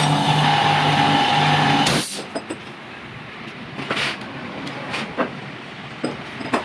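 Yamaha R15 single-cylinder motorcycle engine running steadily, cutting off abruptly about two seconds in, followed by a quieter stretch with scattered clicks and taps.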